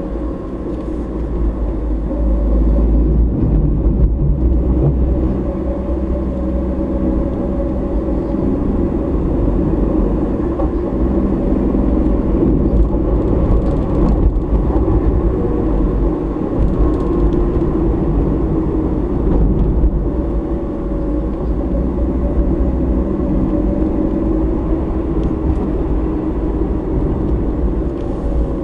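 Car driving at steady speed, a continuous low engine and tyre rumble as picked up by a dashcam microphone inside the cabin.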